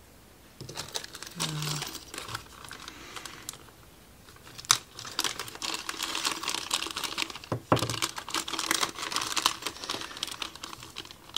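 Small clear plastic parts bag crinkling and rustling as it is handled, with two sharp clicks partway through.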